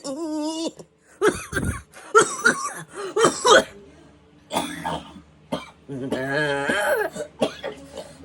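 A person's voice making a run of short coughing, hacking sounds from the throat, then a longer pitched throaty sound about six seconds in.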